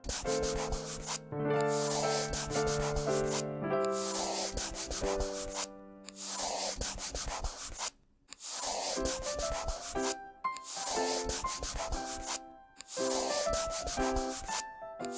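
Marker scribbling on paper, rapid back-and-forth strokes in runs of about two seconds with short breaks between, over a gentle background tune.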